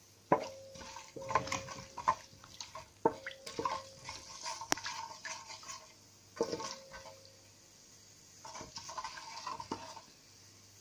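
A spoon stirring whole spices frying in oil in a metal pot: irregular scrapes and knocks against the pot, each ringing briefly, with a pause near the middle, over a faint sizzle of hot oil.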